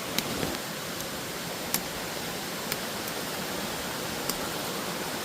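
Steady rush of a waterfall's falling water, with a few faint clicks over it.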